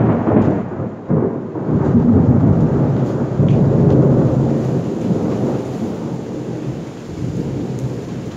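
Rolling thunder: one long, low rumble, loudest in the first few seconds, then slowly fading.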